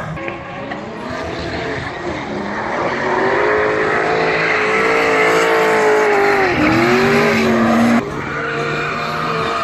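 Drift car engine held at high revs while the tyres screech in a sustained slide. About two-thirds of the way in the revs drop sharply and climb again, and near the end the sound changes abruptly to another car sliding.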